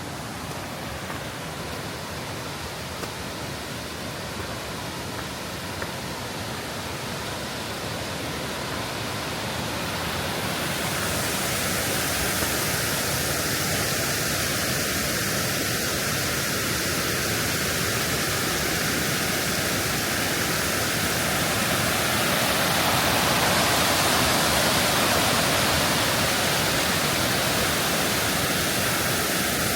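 Running water of a river, a steady noise that gets louder and hissier about ten seconds in.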